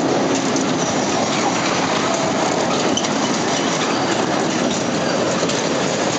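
Steady mechanical noise of a Tilt-A-Whirl amusement ride running, heard from inside a car as it spins and rolls around the platform.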